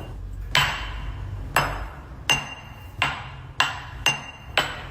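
A series of about seven sharp hammer-like strikes on something that rings briefly after each blow, like metal. The strikes come a little closer together toward the end.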